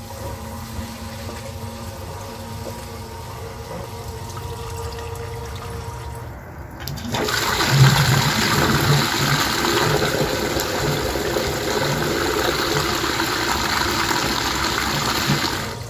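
Electric submersible sump pump running in the pit with a steady hum. About seven seconds in, a loud rush of water takes over as the pumped water gushes out of the discharge line's pop-up emitter.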